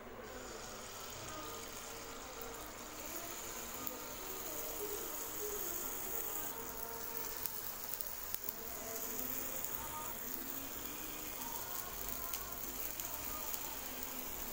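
Batter sizzling steadily in hot oil as it is ladled into the cups of a cast-iron kuzhi paniyaram pan, with a few faint clicks.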